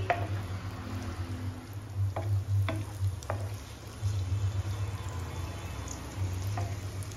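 A wooden spatula stirring sliced onions in oil in a nonstick frying pan, knocking against the pan a few times, over a gentle sizzle and a steady low hum.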